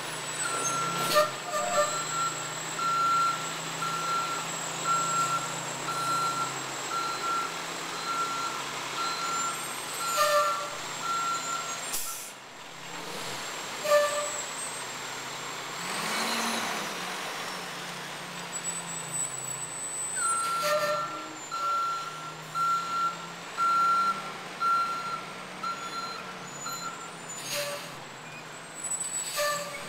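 Garbage truck's reversing alarm beeping, about one and a half beeps a second, over its diesel engine running. The beeping stops about twelve seconds in and starts again around twenty seconds in. A few short, sharp noises stand out above it.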